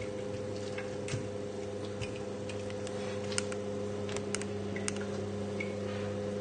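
Metal kitchen tongs clicking against the pot and against each other as braised lamb shanks are lifted out of the sauce: a dozen or so light, scattered clicks over a steady low hum.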